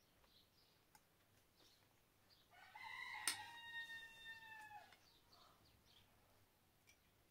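A rooster crowing once, faint, a single call of about two and a half seconds that drops slightly in pitch at the end. Faint small-bird chirps come and go around it.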